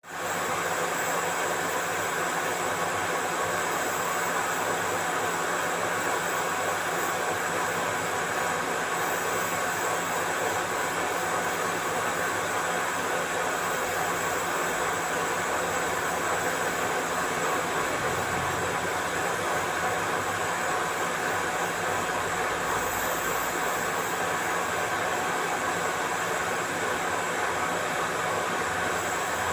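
A machine running steadily without a break, with a thin high whine over a dense mechanical hum.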